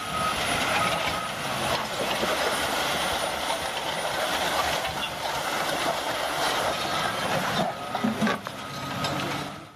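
Heavy diesel machinery running, with a noisy, rumbling engine. A reversing alarm beeps in the first second and again near the end. The sound cuts off abruptly at the end.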